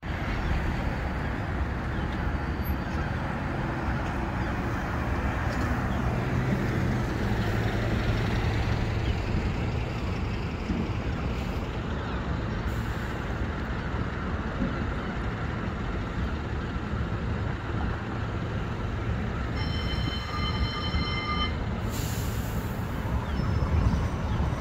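CAF Urbos 100 tram approaching on street track amid steady road-traffic noise, growing louder near the end as it comes close. About twenty seconds in, a steady pitched tone sounds for about two seconds.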